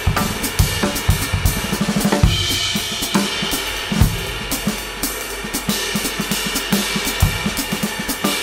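Background music driven by a drum kit: kick, snare, hi-hat and cymbals keeping a steady beat, with a quick drum fill ending in a crash about two seconds in.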